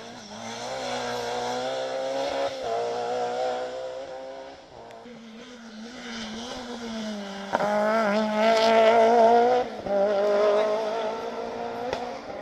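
Rally cars passing at speed, their engines revving hard and dropping back as the drivers change gear and lift. A second, louder pass starts suddenly past the middle.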